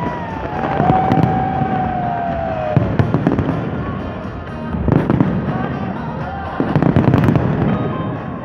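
Fireworks display going off: heavy bangs about every two seconds amid dense crackling, with a long whistle that slides down in pitch over the first three seconds.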